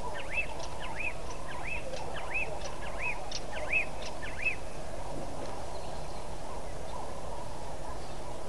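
A bird calling: a string of about seven short, arched whistled notes, evenly spaced at a little over one a second, which stops about halfway through, over a steady background hum.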